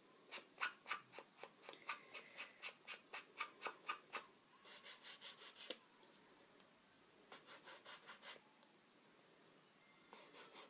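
Small ink pad swiped along the edges of a paper card, quick faint scratchy strokes about three or four a second, in runs broken by short pauses.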